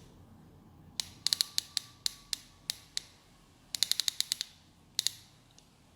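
Automatic ratchet belt buckle clicking as the strap is slid in over its grooves: scattered single clicks, then a quick run of about eight clicks, and one last click.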